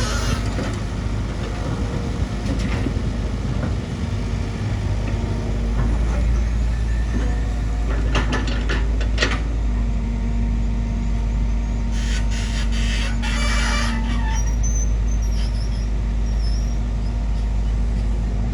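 Bulldozer's diesel engine running steadily with a deep rumble, broken twice by short stretches of higher-pitched noise, about halfway through and again a few seconds later.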